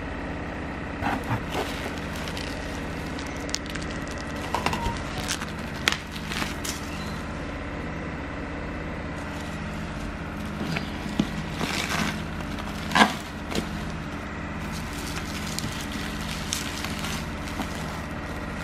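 Bubble wrap and cardboard packaging being handled and pulled open, crinkling and crackling in scattered bursts, the loudest a little after halfway. A steady low drone hums underneath throughout.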